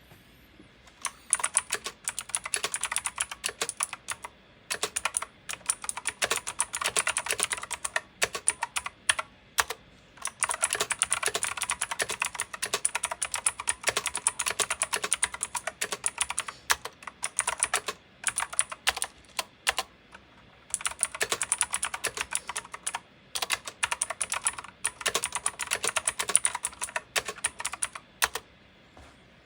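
Fast typing on a Razer BlackWidow V3 TKL mechanical keyboard: quick runs of sharp keystroke clicks, broken by several short pauses.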